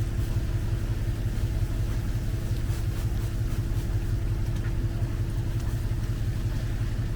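Boat engine running steadily: a low, even drone with a constant hum.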